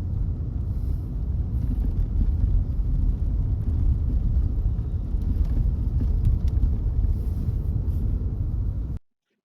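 Car driving, a steady low rumble of road and engine noise that cuts off abruptly near the end.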